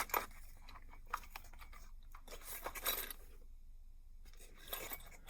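Faint rustling and small clicks of a plastic Ziploc bag being handled and opened, with scattered light clinks. The sharpest click comes right at the start.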